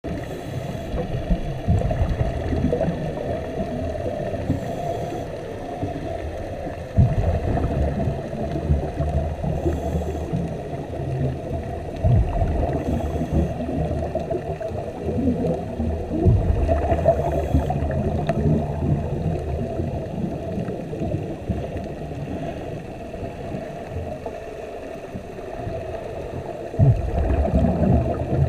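Underwater sound picked up by a camera in its housing: a steady low muffled rumble, with the gurgle of scuba exhaust bubbles surging every few seconds.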